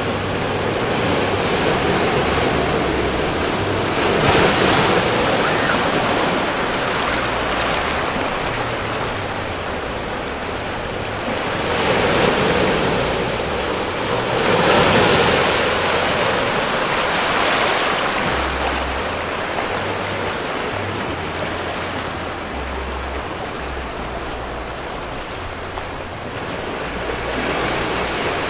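Small ocean waves breaking over a shallow rocky reef and washing across the rocks, the surf swelling and easing every few seconds.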